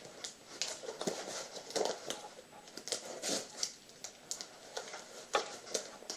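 Cardboard shipping box being handled and opened by hand: irregular taps, clicks and short scraping, rustling sounds of the cardboard and packing.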